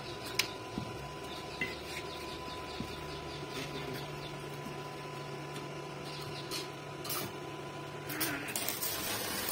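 Bossweld inverter arc-welding machine running, its cooling fan giving a steady hum with a faint steady high tone over it. About eight seconds in, the welding arc is struck and an uneven hissing crackle begins.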